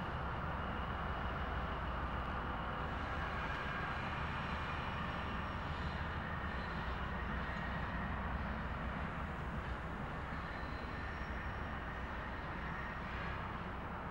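ST48 diesel locomotive's engine running steadily as it pulls a tank wagon away, growing slightly fainter toward the end.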